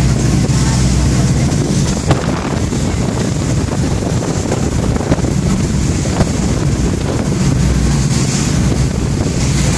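Wind buffeting the microphone aboard a moving passenger ferry, over the steady low drone of its engines and the rush of water, with a few faint knocks.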